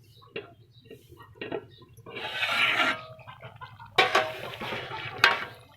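Cooking utensils at work: a metal spoon scraping in a cooking pot, then two sharp metal knocks, the second near the end, over a steady low hum.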